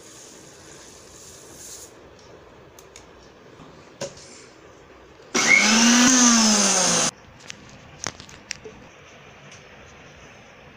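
Electric mixer-grinder blending milk for a chocolate milkshake in one short burst of about two seconds, its motor pitch rising as it spins up and falling as it winds down. Before it, sugar pours from a scoop into the jar with a soft hiss, and a knock comes about four seconds in.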